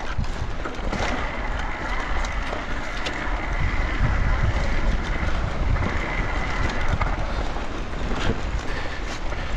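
Electric mountain bike riding over a loose sandy track: steady tyre rolling noise and low rumble, with scattered clicks and rattles from the bike and a faint steady high whine from the motor.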